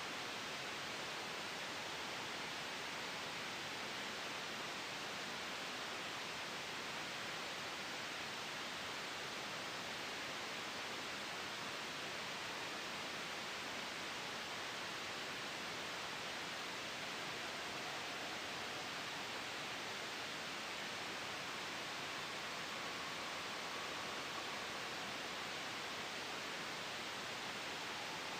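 Steady white-noise hiss of the kind used for masking noise during sleep, even in level with no sudden changes.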